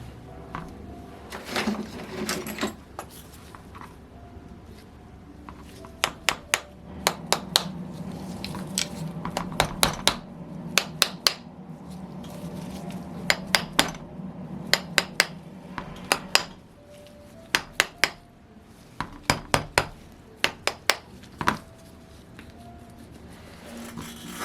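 Small metal engine parts, screws and tools clinking as they are handled and set down, the sharp clinks often coming in quick clusters of two to four. A low hum runs under them through the middle stretch.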